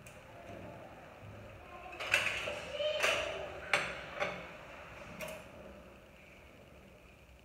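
Kitchen utensils clattering: about five sharp clinks and scrapes of a knife and kitchenware, spaced roughly a second apart in the middle of the clip, the loudest about two to three seconds in.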